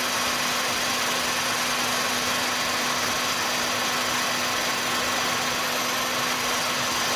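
Heat gun running steadily, its fan motor humming under a loud rush of hot air, held close to the microphone while it softens the adhesive holding a headlight lens cover.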